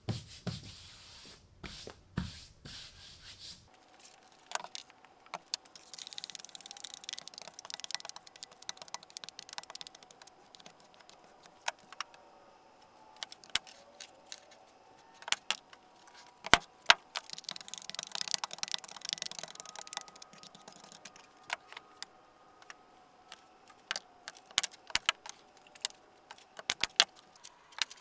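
Handling sounds of a veneer glue-up: wooden parts and veneer sheets set down and shifted with scattered light clicks and knocks, and two stretches of soft rubbing hiss.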